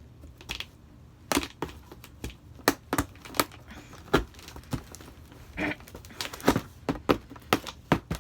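Irregular sharp cracks and snaps from a cardboard shipping box being forced open, with a short scraping or tearing sound about four seconds in.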